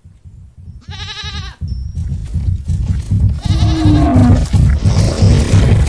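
Sheep bleating twice, a quavering call about a second in and another about three and a half seconds in, over a low rumble of galloping hooves that grows louder as a stampede builds.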